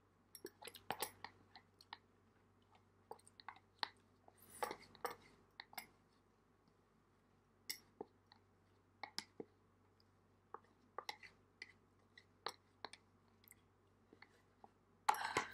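Close-up mouth sounds of a person eating Samyang Buldak spicy noodles: irregular wet clicks and smacks of chewing and swallowing as the cup is tipped to the mouth. There is a longer soft patch about five seconds in and a louder burst of noise just before the end.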